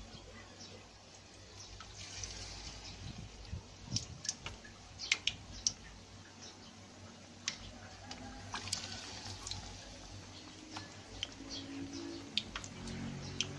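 Battered sweet potato strips deep-frying in hot oil in an aluminium wok: a steady sizzle with frequent sharp pops and crackles.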